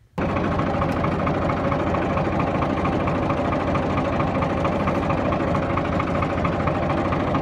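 New Holland tractor's diesel engine idling steadily. It comes in abruptly just after the start and holds an even running rhythm.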